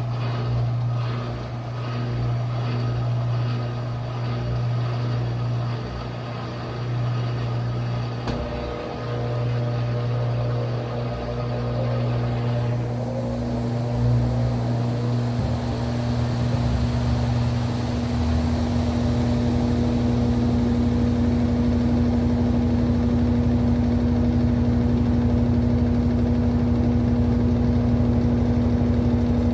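Brastemp BWT09A 9 kg washing machine in its spin cycle: a steady motor hum that shifts partway through and settles into a slightly louder, even hum as the drum spins.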